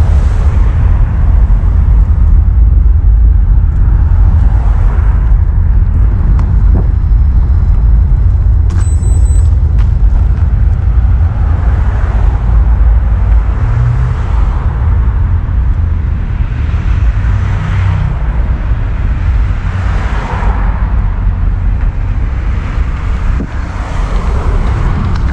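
Steady low road and wind rumble from riding along a road, with passing traffic swelling and fading every few seconds. A brief high beep about nine seconds in.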